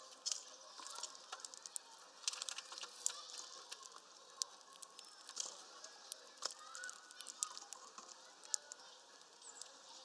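Small birds at a feeder, a great tit and greenfinches, pecking and cracking seeds and nuts: many irregular sharp clicks and taps, with a few short chirps.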